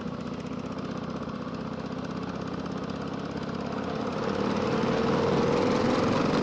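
Harley-Davidson Sportster V-twin engine running under way, its note rising and growing louder about four seconds in as the bike accelerates.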